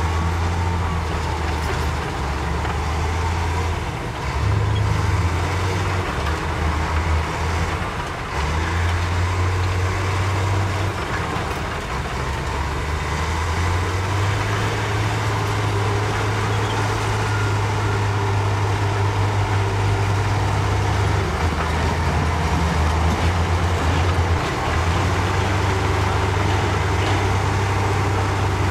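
Heavy diesel dump truck engines running, the low engine note stepping up and down every few seconds as the trucks' hoists raise their beds to tip rock.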